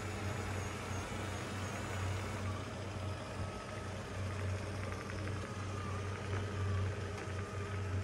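XWOW R2 robot vacuum-mop running as it turns in place in front of its base station to dock: a steady low motor hum that swells and fades, with a faint whine above it.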